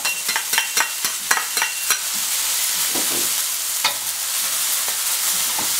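Thai morning glory sizzling in a wok stir-fried over high heat. A metal ladle clinks sharply several times in the first two seconds as soy bean paste goes in, with one more clink about four seconds in.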